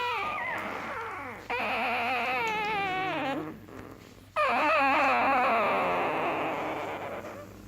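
Dog whining in long, wavering, drawn-out cries, three in a row with short breaks between, the last the loudest: begging for food.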